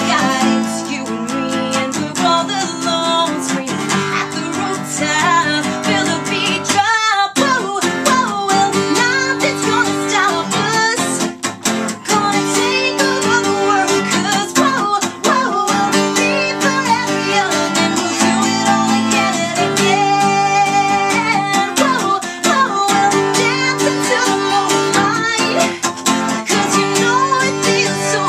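A woman singing while strumming an acoustic guitar, with a short break in the strumming about seven seconds in.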